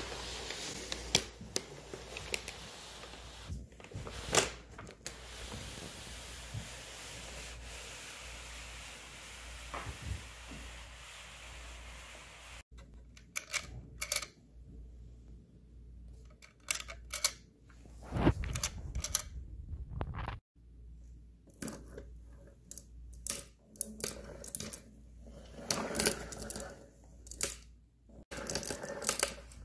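Hands handling a 3D-printed plastic Cybertruck model: scattered clicks and taps as printed parts such as the side steps and bed cover are pressed, fitted and moved. A steady hiss runs under the first half.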